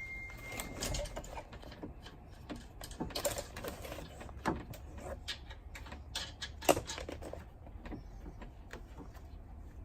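Metal clicks and clinks of hand tools and bolts as a strut bar is fitted and bolted down, irregular and scattered, with one sharp, louder clink about two-thirds of the way through.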